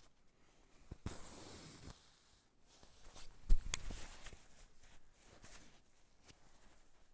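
Embroidery thread being drawn through fabric with a hiss lasting about a second, then a single sharp knock midway, followed by fabric rustling as the work is handled.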